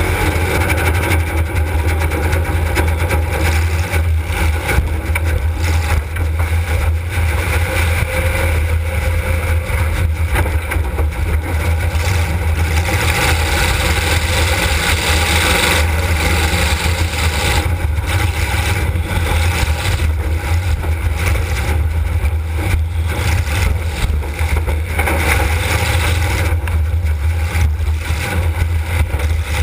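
Demolition derby car's engine running hard, heard from inside the car as a steady low drone, with frequent knocks and clatter of metal throughout.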